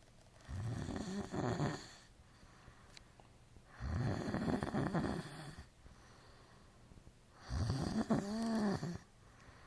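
A sleeping young man snoring: three loud snores about three and a half seconds apart, each lasting about a second and a half. The last one has a pitched tone that rises and falls.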